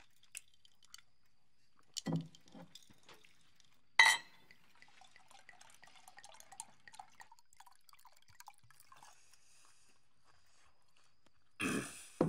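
Cutlery and glassware clinking at a quiet dinner table. A short thud comes about two seconds in and a sharp, ringing clink about four seconds in, then scattered small clicks and a brief louder sound near the end.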